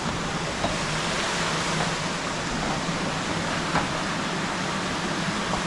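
A steady rushing noise, with a few faint taps spaced a second or two apart from footsteps on a corrugated-metal footbridge.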